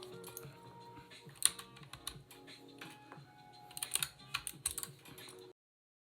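Typing on an Anne Pro 2 mechanical keyboard with clicky Kailh Box White switches and PBT keycaps: irregular keystroke clicks, with a quick flurry near the end. The sound cuts off suddenly about five and a half seconds in.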